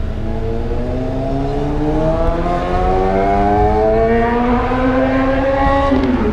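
Mazdaspeed 6's turbocharged 2.3-litre four-cylinder accelerating, its pitch climbing steadily for about six seconds, then dropping sharply on an upshift near the end.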